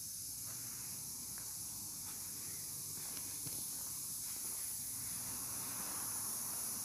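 Steady high-pitched hiss over a faint low hum, with a few faint ticks: workshop background noise.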